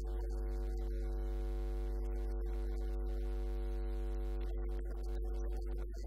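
Background music of long held chords, with a steady low hum underneath.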